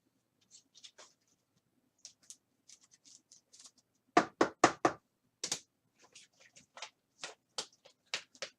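Hands handling trading cards on a table: scattered light clicks and taps, with a quick run of four louder knocks a little past halfway.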